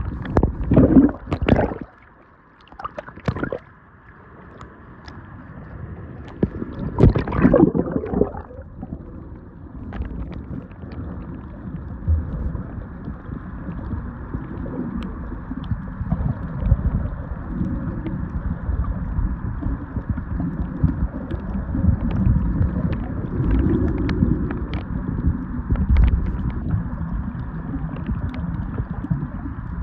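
Underwater camera dipping in and out of the sea: splashes and sloshing in the first couple of seconds and again briefly around 7 to 8 seconds in, then a steady muffled underwater rushing and low rumbling as it stays submerged.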